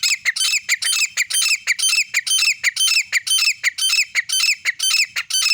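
Grey francolin female calling: a fast, unbroken run of loud, high, sharp notes, each dropping slightly in pitch, about five a second.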